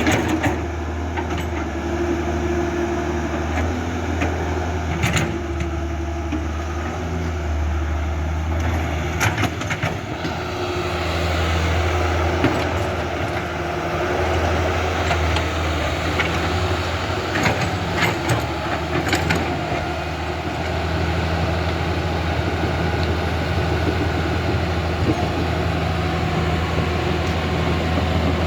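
An excavator at work: a steady low mechanical hum with a few short clicks and knocks along the way.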